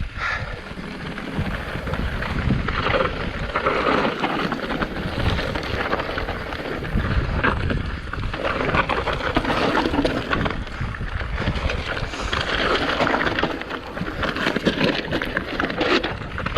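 Mountain bike ridden fast downhill: wind rushing over the microphone, with the tyres and frame rattling and clattering continuously over rough ground.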